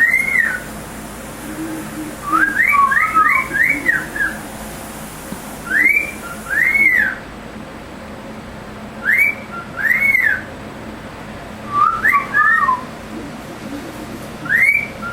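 Cockatiel whistling its song in short phrases of rising-and-falling whistled notes, mostly in pairs, repeated every few seconds. A quicker run of five or six notes comes about three seconds in, and another brief run about twelve seconds in.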